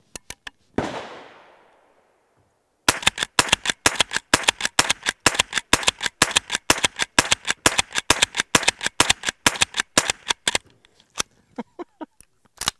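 Henry Pump Action Octagon .22 rimfire rifle fired rapidly: a fast run of sharp small-calibre cracks and pump-action clacks, about five or six a second for some seven seconds. Before it come a few single clicks and one louder bang with a long fading tail; after it, a few sparse clicks of the action being worked.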